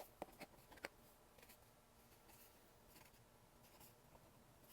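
A few light clicks and taps of small diorama pieces being handled and fitted together, mostly in the first second, then near silence with a couple of faint clicks.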